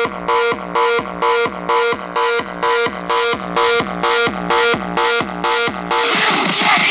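Electronic dance music played loud through a car sound system, a deep kick drum thumping about twice a second under repeating synth chords, with a rising noise swell near the end.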